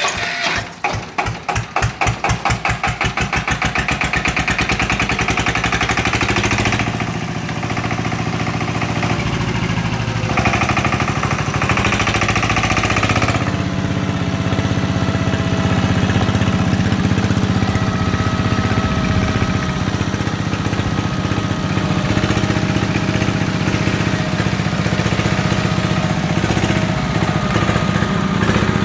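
1950 diesel generator engine starting up: slow, separate firing beats quicken over the first few seconds, then it settles into steady running.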